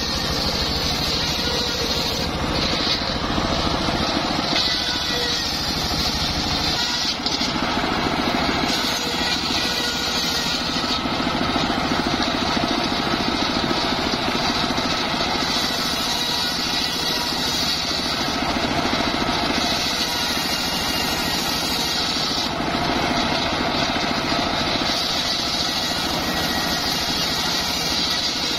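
Homemade engine-driven table circular saw running steadily while ripping teak planks lengthwise: the blade's cutting noise over the engine's constant drone.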